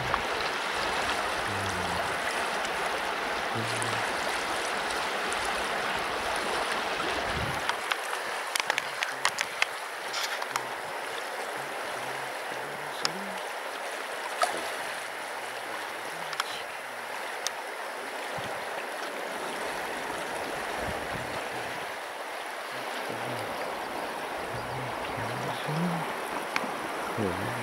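A taiga river rushing steadily over stones, a little louder in the first several seconds, with a few short sharp clicks in the middle.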